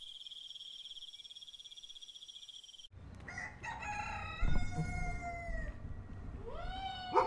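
A steady, high, fast-pulsing trill like night insects, which cuts off abruptly about three seconds in. Then a rooster crows twice, the second crow starting near the end.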